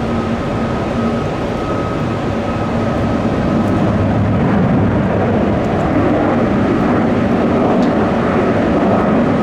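Jet airliner engines running: a steady noise with a thin high whine, growing a little louder about four seconds in.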